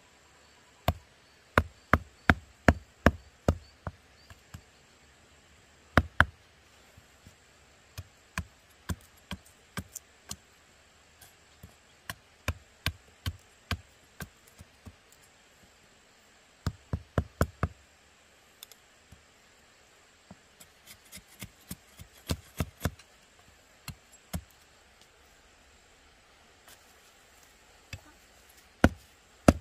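Machete blade chopping at a length of bamboo: sharp knocks in quick runs of several strokes, about two or three a second, broken by short pauses.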